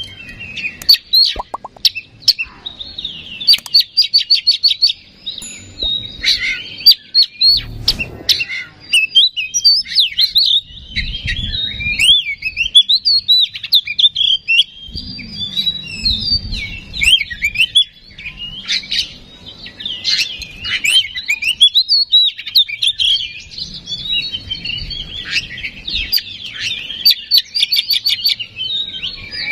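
Oriental magpie-robin singing without pause: a fast, varied stream of whistled phrases, sliding notes and rapid clicking trills. It is the full, 'gacor' song used as a bait recording to provoke other magpie-robins.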